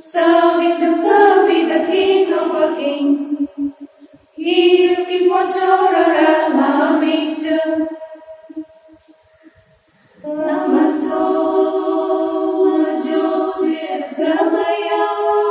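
Unaccompanied voices singing together in three long held phrases, with short pauses between them.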